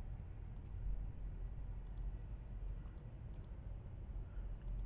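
Computer mouse buttons clicking a handful of times, some clicks in quick pairs, over a steady low hum.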